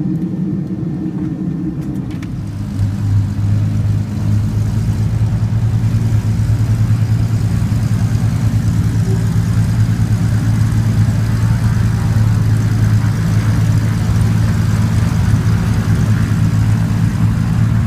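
Aircraft engine running steadily, with a deep hum that grows louder about two and a half seconds in and then holds level.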